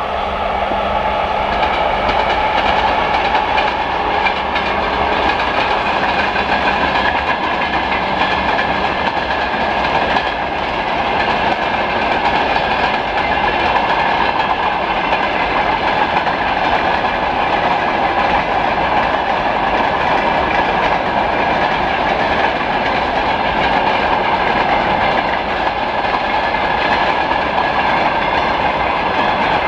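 Long freight train passing behind a 2TE116U diesel locomotive, its wagons' wheels clattering over the rail joints in a steady, loud rumble. A steady low hum from the locomotive is heard for about the first nine seconds, then fades.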